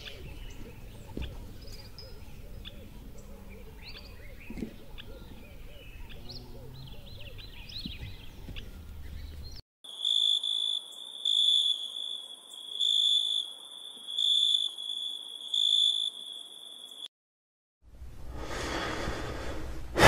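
Countryside ambience of birds chirping over a low outdoor background, cut off about ten seconds in. It gives way to a high pitched, pulsing trill in six bursts about a second and a half apart, like night insects calling. After a short silence, a person draws in a long breath near the end.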